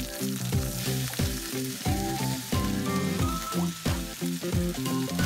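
Chicken thigh sizzling in hot oil in a frying pan, under background music with a steady beat.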